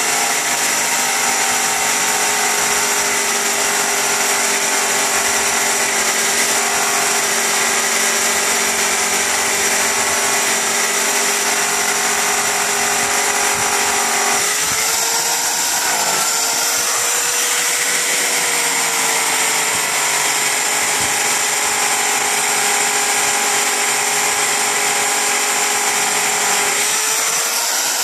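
Electric rotary car polisher running at full speed with an 8-inch airway buffing pad worked against an aluminum truck rim: a steady motor whine whose pitch shifts briefly about halfway through and again near the end.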